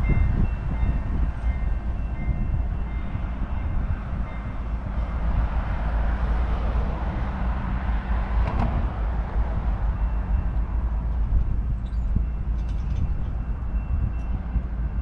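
Diesel locomotive idling: a steady low rumble with a faint steady high whine above it, and a single sharp click a little past halfway.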